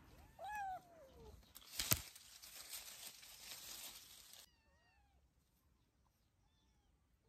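A kitten's loud, drawn-out meow that falls in pitch, then a sharp knock about two seconds in followed by a couple of seconds of rustling in leaves and grass. After that, several faint, high, short kitten mews.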